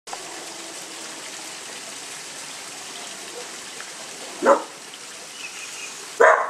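A dog barks twice, two short loud barks about a second and a half apart in the second half, over a steady background hiss.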